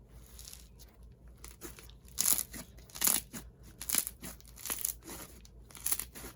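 Snow-textured slime made with fake instant snow being squished and stretched by hand, giving short crunchy, crackling squishes. They come roughly once or twice a second and get louder from about two seconds in.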